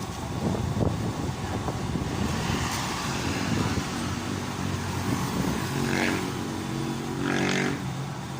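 A motor vehicle engine running, its pitched engine note clearest from about five seconds in until shortly before the end, over an uneven low rumble.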